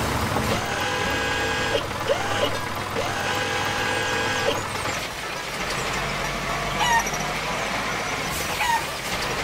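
Cartoon tractor sound effect: the engine runs steadily while the front loader lowers a hay bale, with a steady whine over the engine for about the first half. Two short rising chirps come later.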